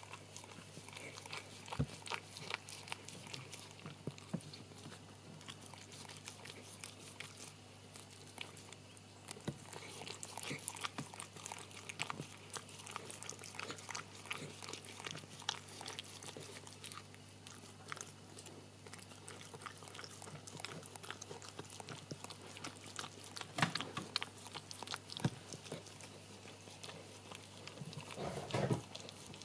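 Shetland sheepdog mother licking and nibbling a newborn puppy still in its wet birth membranes: irregular wet licking and smacking clicks, with a brief louder sound near the end.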